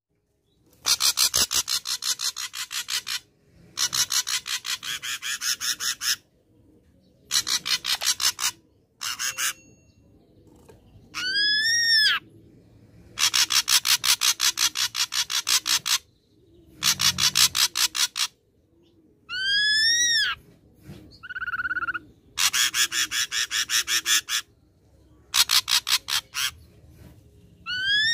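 Ashy drongo singing: harsh, rapid rattling phrases of two to three seconds each with short pauses between them, mixed with a few clear whistled notes that rise and then fall.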